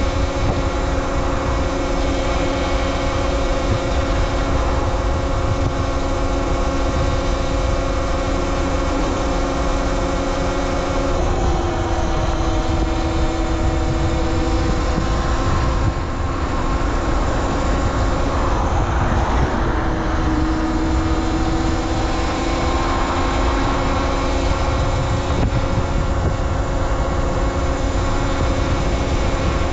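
Talaria Sting R MX4 electric dirt bike riding with its motor and drivetrain giving a steady whine of several tones, over a constant low rumble. The pitch shifts upward about a third of the way in, glides up and down around the middle, and settles back a few seconds later as the speed changes. The bike is locked to its factory settings.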